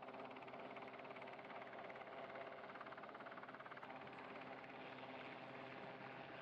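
Sea King helicopter hovering low, its rotor chopping in a rapid, steady beat over a constant engine drone.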